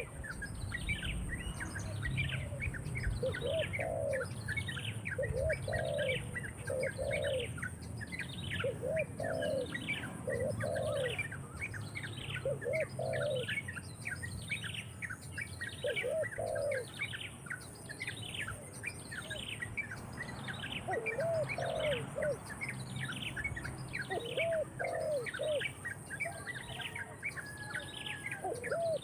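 Birds calling: a steady, fast series of high chirps, each sweeping downward, about one a second, over lower paired cooing notes every second or two.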